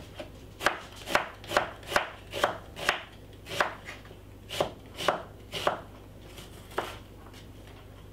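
Kitchen knife dicing a white onion on a wooden cutting board: about a dozen sharp chops, roughly two a second, stopping about seven seconds in.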